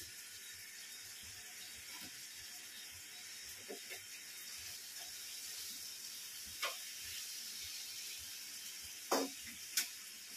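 Fish frying in oil with a steady sizzle. A few sharp clinks of a metal spoon or utensil on dishes, the loudest two near the end.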